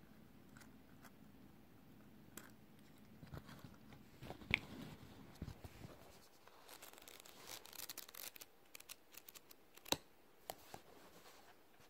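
Paper and cardboard watch packaging handled by hand: faint rustling and crinkling with scattered light taps and clicks, busiest past the middle, with two sharper clicks, one a little before halfway and one near the end.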